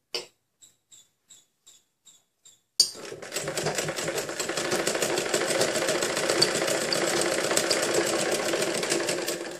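Black household straight-stitch sewing machine: a few faint, slow ticks, then a click about three seconds in and the machine runs steadily at speed, its needle mechanism ticking rapidly as it stitches through the fabric.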